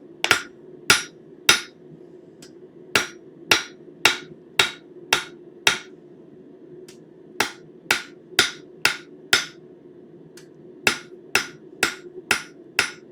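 Hand hammer striking hot 1/4-inch square steel on the anvil face, straightening a tapered bar, with bright ringing blows about two a second in four runs and short pauses between them.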